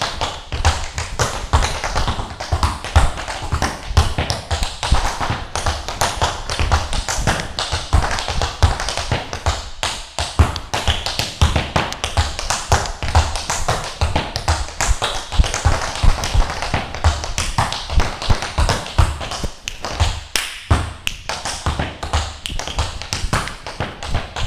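Tap shoes striking a wooden floor in an unaccompanied, improvised tap dance: a dense, fast stream of taps and heavier heel drops with a few brief pauses.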